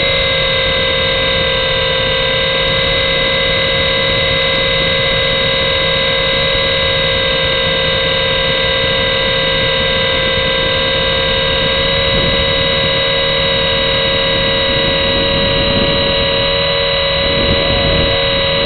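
Syma S107 toy helicopter's small electric motors and coaxial rotors in flight, a steady high whine with a buzzing hum, heard close up through its onboard camera's microphone.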